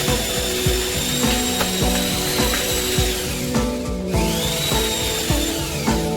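Background music with a steady beat. A high whine over it drops out about three and a half seconds in and rises back up just after four seconds.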